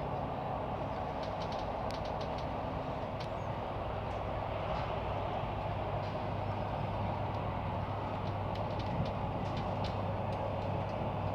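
Passenger train running steadily, heard from inside the carriage: an even rumble and hum with scattered light ticks.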